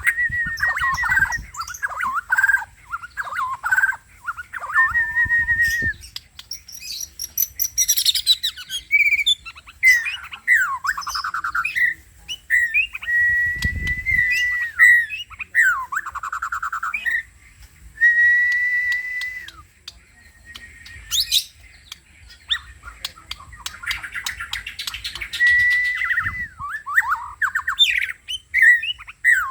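Bornean white-rumped shama (murai batu) singing vigorously ('gacor'): a run of varied phrases with clear held whistles, fast trills and rapid chattering notes, broken by short pauses.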